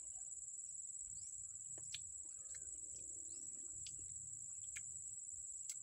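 Steady high-pitched drone of insects, a continuous chorus, with a handful of short, sharp clicks scattered through it.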